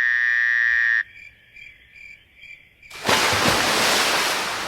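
Frogs calling in short chirps repeated a few times a second, under a loud steady pitched tone that cuts off about a second in. About three seconds in, a loud even rushing noise takes over.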